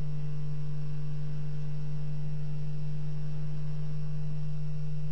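A steady low hum: one unchanging low tone with faint higher overtones, holding at a constant level throughout.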